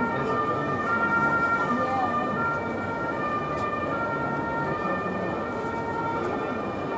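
Two-tone emergency-vehicle siren alternating between two steady pitches, switching about every half second to second, over steady city background noise.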